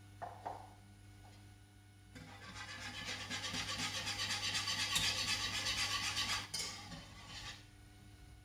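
Wire whisk beating coconut milk in a metal saucepan: a fast, rhythmic swishing and scraping that builds about two seconds in, runs for about four seconds, then fades and stops. A couple of light knocks come near the start.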